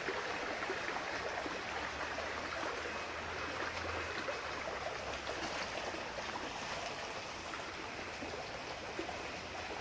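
Small forest stream running steadily over rocks, a continuous rushing and gurgling of water.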